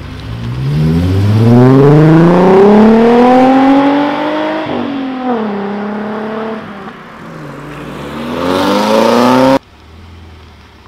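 Volkswagen Vento's engine revving up as the car accelerates away, the pitch climbing for a few seconds, then dropping at a gear change and climbing again before cutting off abruptly. After the cut, a car's engine idles quietly.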